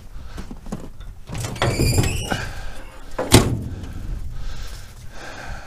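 Case 580 Super K backhoe's steel engine cover panel being swung open: a squealing metal scrape, then one loud thunk about three seconds in as the panel comes to its stop.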